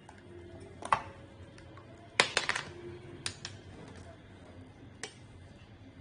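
Light plastic clicks and taps, scattered with a quick cluster of them a little past two seconds: a felt marker and a plastic ruler handled against a piece of cut plastic bottle on a plastic tabletop while a line is marked.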